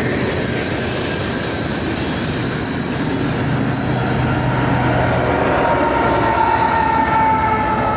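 Loaded coal train passing close by: the steady rumble of the last coal cars rolling on the rails, then the engine drone of two rear locomotives, an EMD SD70ACe and a GE ES44AC, as they pass. A high steady whine joins from about five seconds in.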